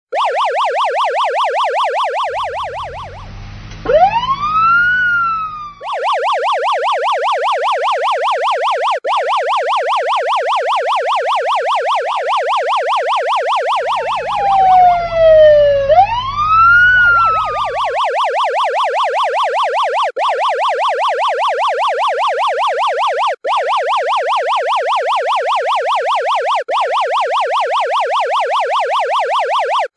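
Electronic police siren in a rapid yelp, its pitch warbling quickly up and down. Twice it breaks into a louder single swoop, with a low rumble underneath: once rising and falling, and later falling then rising. Each time it returns to the fast yelp.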